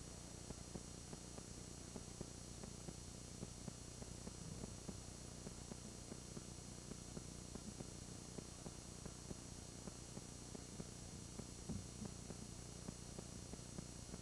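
Faint steady hum and hiss of an old camcorder videotape recording, with scattered soft crackles and no distinct sound standing out.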